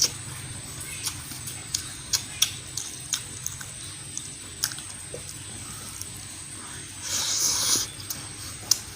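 Close-miked wet eating sounds: chewing and lip and tongue smacks as scattered sharp clicks, with a longer slurp about seven seconds in.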